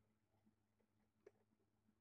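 Near silence: room tone with a faint low hum and one faint tick about a second and a quarter in.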